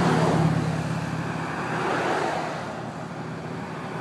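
A line of cars and police vehicles driving slowly past close by: engine and tyre noise, loudest in the first second as one vehicle passes, with another swelling past about two seconds in.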